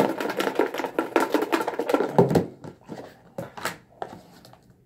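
Paper slips rattling inside a plastic tub that is being shaken hard, a dense rapid rattle for about two and a half seconds that then thins to a few scattered knocks.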